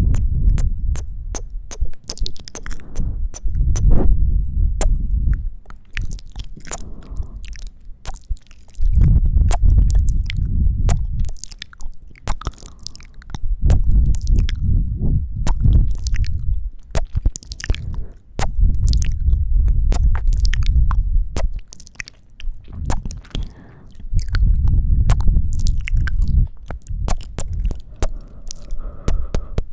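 Close-miked ASMR mouth sounds: wet kissing and sucking clicks right at the microphone, with slow warm breaths blown into it every few seconds as a low rumble, about six of them.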